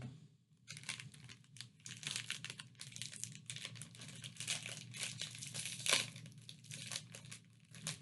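Snack wrapper crinkling and being torn open, a dense run of crackles starting about a second in.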